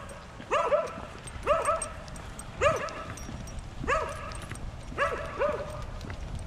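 A dog barking repeatedly, about one bark a second, sometimes two in quick succession.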